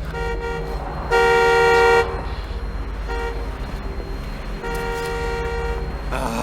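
Car horn honking four times over a steady low engine rumble: a short blast, a louder blast of about a second, another short blast, then a longer one.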